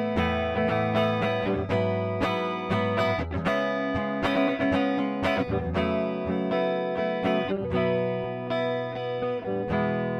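PRS SE Custom 22 electric guitar played on its neck humbucker pickup: picked notes and chords struck in a steady rhythm, with a run of quick notes in the middle.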